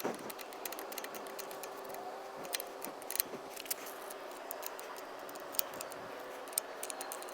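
Light, irregular clicks and taps of hand tools on the electric dirt bike's rear-axle chain adjusters as the wheel is moved back to take up chain slack, over a faint steady hum.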